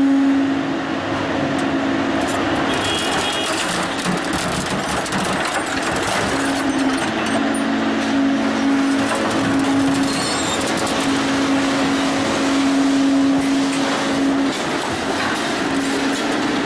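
Shark 1100 hydraulic scrap shear working: a steady, loud machine noise with a pump hum that drops in and out, and occasional sharp metallic clicks as the ram presses down on a load of scrap metal and rises again.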